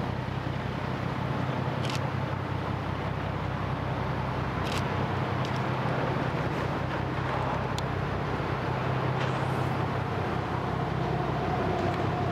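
Steady low engine drone over outdoor background noise, with a few faint short clicks and a thin steady tone joining near the end.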